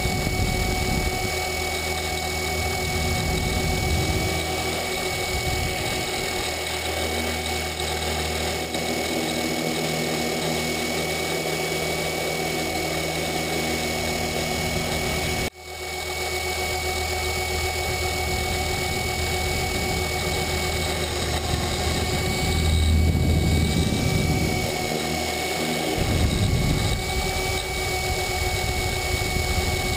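Align T-Rex 500 RC helicopter in flight, heard from a camera mounted on the airframe: a steady whine and hum of motor, gears and rotor. It swells louder a few times and drops out for a split second about halfway.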